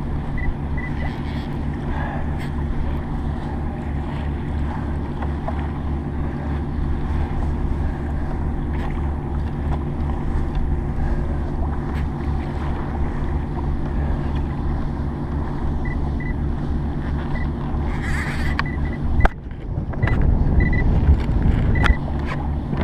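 Boat engine running steadily close by, a low pulsing hum. A little after two-thirds of the way through it cuts out for a moment and is followed by about two seconds of louder, rougher rumbling.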